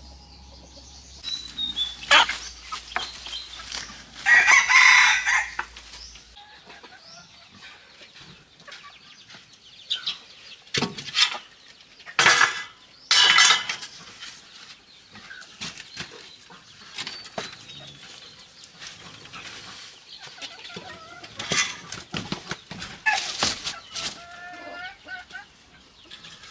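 Chickens clucking, with a rooster crow about four seconds in. Between them come several loud, sharp knocks and clatters, the loudest sounds here.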